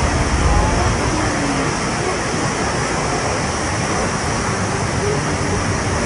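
Rain-swollen torrent of muddy floodwater rushing steadily, a continuous dense wash of water noise.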